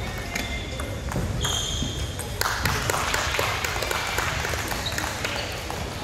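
Table tennis balls clicking off bats and tables, many sharp ticks from several games going on at once, with a few short high squeaks. A louder rush of noise rises a little before halfway and lasts about two seconds.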